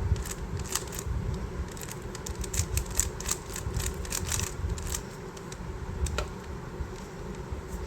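GAN 12 Maglev speed cube being turned by hand: its plastic layers give quick, irregular clicks as they snap into place.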